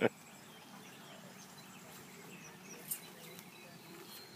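Quiet outdoor ambience with a few faint high chirps and one short faint click about three seconds in.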